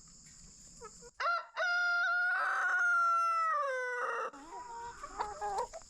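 Rooster crowing once: two short opening notes, then one long held note that drops in pitch at the end.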